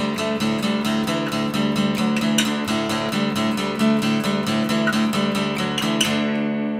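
Background music: an acoustic guitar strummed in a quick, even rhythm of about five strokes a second. The strumming stops about six seconds in and the last chord rings out and fades.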